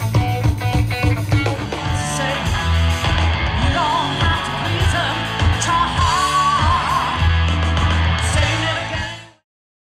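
Rock music: strummed electric guitar with bass, joined by a singing voice about two seconds in, cutting off abruptly near the end.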